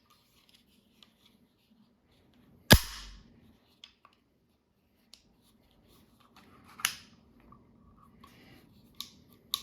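Sharp metallic clicks and snaps of a pistol being handled for cleaning. The loudest comes about three seconds in and has a low thud under it; a second strong snap follows near the seven-second mark, with lighter ticks in between.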